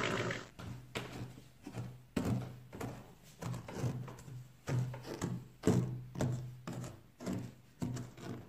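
Plastic Schleich horse figure being knocked along the floor of a toy riding arena by hand, giving a run of short thunks about twice a second.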